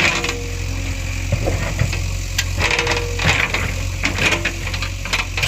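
JCB 3DX backhoe loader's diesel engine running steadily, with repeated metallic clanks and knocks from the working machine and a few short squeals.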